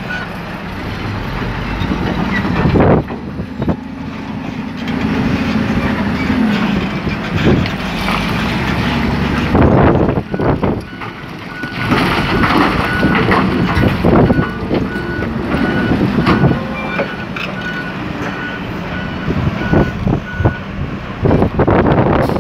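Cat 980C wheel loader's diesel engine working hard as it lifts and dumps a bucket of blasted rock, with loud crashes of rock dropping into a haul truck's steel bed about halfway through. A reversing alarm beeps steadily at times.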